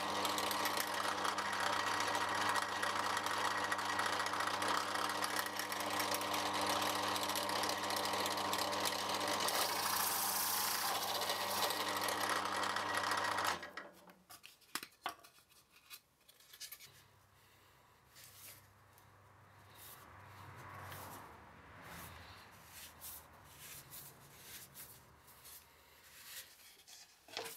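Bench drill press running with a steady motor hum as its large flat-bottomed bit bores a shallow recess into a wooden plate, not going all the way through. The sound cuts off suddenly about 13 seconds in, leaving faint handling taps and clicks.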